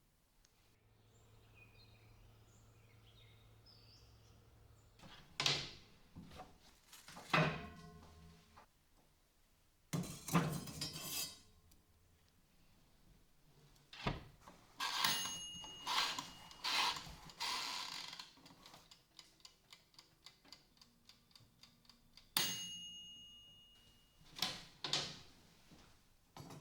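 Tools and metal parts being handled and set down on a workbench: scattered knocks and clicks, a few with a short metallic ring.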